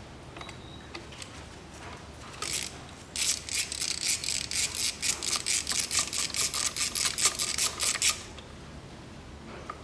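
A ratchet clicks quickly and evenly for about five seconds, starting about three seconds in, as a Torx T40 bit turns out the ignition coil pack's mounting bolts on a 1.8 engine.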